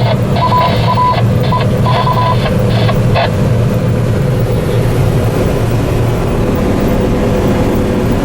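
Steady drone of a combine harvester heard from inside its cab, with an irregular run of short electronic beeps over roughly the first three seconds.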